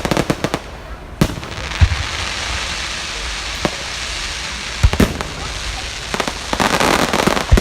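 Fireworks display: a quick run of sharp cracks at the start, then single deep bangs of shells bursting spread through, and a dense spell of crackling near the end, over a steady hiss.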